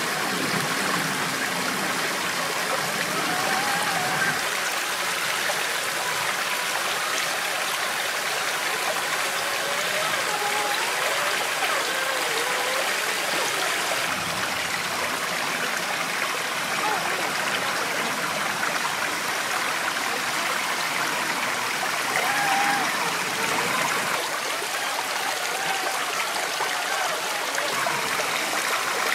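Rocky mountain stream running over and between rocks: a steady rush of water with small wavering gurgles now and then.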